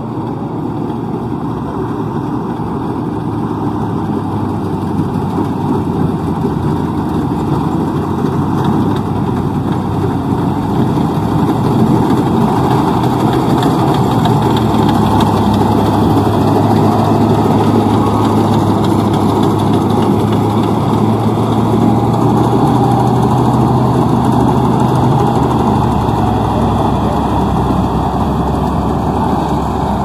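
Maxxi Corn Type G rice combine harvester running steadily as it cuts rice, its engine and machinery growing louder over the first dozen seconds as it comes close, then holding.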